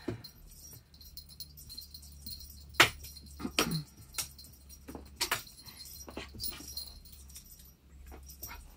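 Cats playing with a wand chaser toy: scattered sharp taps and knocks as the toy and the cats' paws hit the carpet, the loudest about three seconds in, with a brief falling cry around the middle, over a low steady hum.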